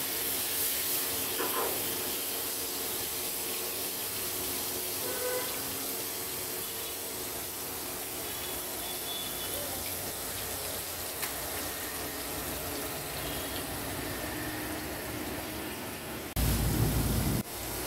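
Butter melting and sizzling in a frying pan over a gas burner: a steady hiss. About a second and a half before the end, a brief loud low rumble.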